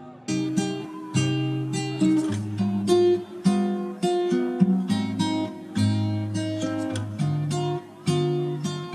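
Background music: an acoustic guitar playing plucked notes and chords at an even pace.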